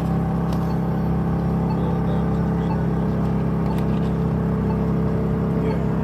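Steady low mechanical hum that holds one pitch throughout.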